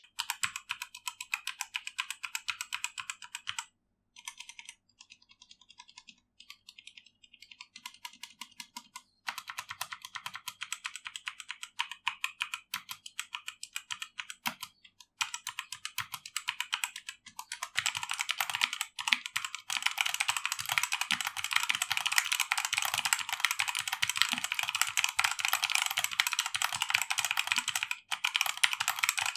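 Typing test on a Redragon K617 Fizz 60% mechanical keyboard with linear Redragon red switches: a rapid run of keystroke clacks, quieter for a few seconds about four seconds in, then denser and faster through the second half.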